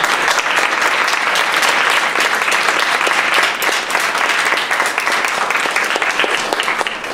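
Audience applauding: steady clapping from many hands, fading away near the end.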